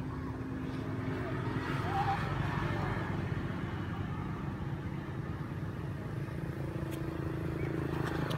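An engine running steadily as a low, even hum, with a brief high chirp about two seconds in and a few faint clicks near the end.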